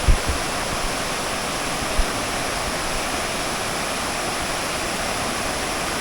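Waterfall pouring in heavy flow, a steady loud rush of falling water swollen by rain. Brief low bumps just after the start and about two seconds in.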